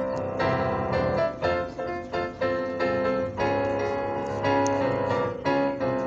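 Piano music: a slow, steady run of struck chords and melody notes, a new note about every half second to a second.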